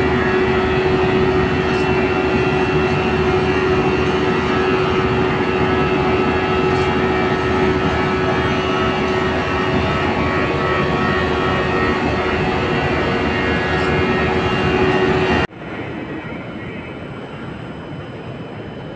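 Loud, steady roar of cement plant machinery with a steady hum running through it. About three-quarters of the way through it cuts off suddenly, giving way to a quieter steady rumble.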